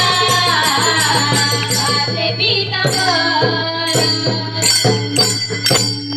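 Marathi devotional bhajan music. Group singing ends about a second in over a low steady drone, then jingling percussion strikes carry a steady beat.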